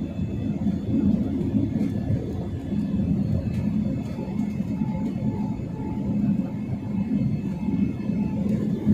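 Cabin noise of a jet airliner climbing after takeoff: its turbofan engines and the rush of air, heard from a window seat inside the cabin as a steady low rumble.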